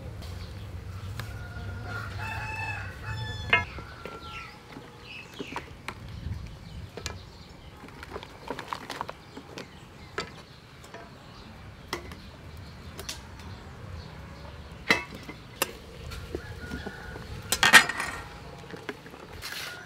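A rooster crows once, about two to three seconds in, over a low rumble. Scattered sharp clicks and knocks follow, with the loudest cluster near the end.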